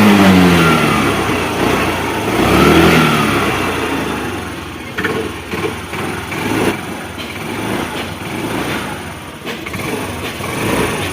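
Hero Pleasure scooter's small single-cylinder four-stroke engine blipped once about two seconds in, its pitch rising and falling, then settling to a lower, uneven idle. The tappets have just been adjusted to cure a tappet noise, and the engine is running well.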